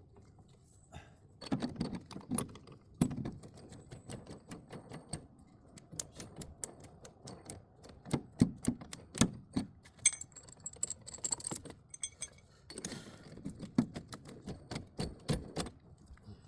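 Small metal tools and parts clinking and rattling in irregular runs of sharp clicks and knocks, with a little metallic ringing in the middle.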